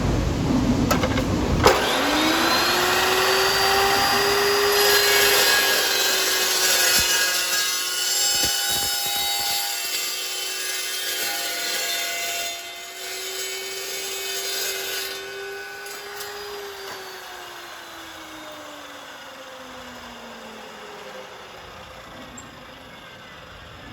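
Circular saw with a carbide-tipped (TCT) blade cutting steel: a sharp click, then the motor's whine rises as the blade spins up, the hiss of the cut runs for about ten seconds, and the whine then falls away as the blade coasts down.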